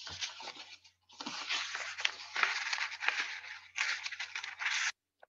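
Paper rustling and crinkling close to the microphone in a few long stretches, with a brief pause about a second in, cutting off sharply near the end.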